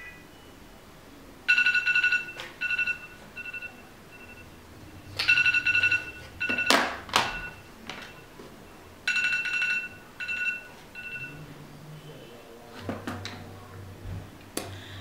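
Electronic timer alarm going off three times, each time a long beep followed by two or three shorter ones, about four seconds apart, signalling that the five minutes are up. A short knock falls between the second and third rounds.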